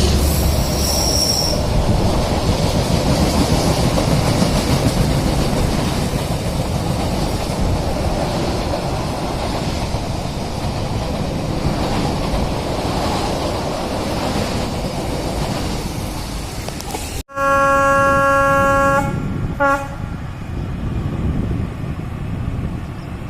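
Freight train running with a steady rumble and clatter of wheels on the rails. After an abrupt cut about seventeen seconds in, the diesel locomotive's horn sounds one long blast of about a second and a half, then a short toot.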